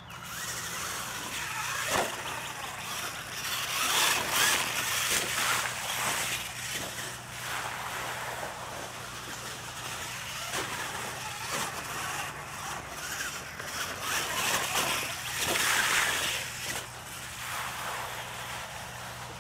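Radio-controlled mega truck driving hard over a dirt track, its motor and drivetrain noise rising and falling with the throttle, with a splash as it ploughs through a muddy puddle near the end.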